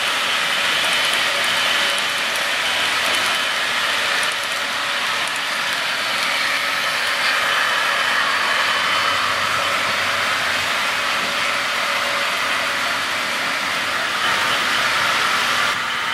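HO scale model double-stack freight train rolling past on the track: a steady hiss-like rumble of small wheels on rails and running gear.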